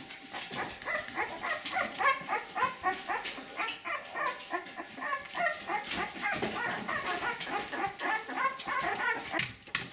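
A litter of two-week-old puppies whimpering and squeaking, many short rising and falling calls overlapping one another.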